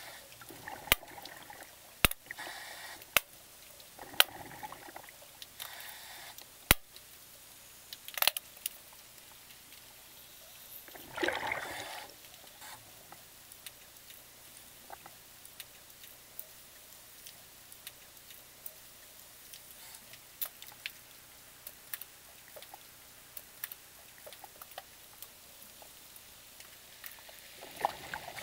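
Underwater sound: scattered sharp clicks and knocks over a faint hiss, with a short gurgling rush of bubbles about eleven seconds in.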